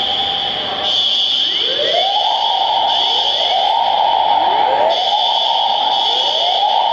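Fire alarm sounders going off during an FM200 clean-agent system test. A steady, piercing high tone is joined about a second and a half in by a repeating rising whoop, sweeping up about once a second.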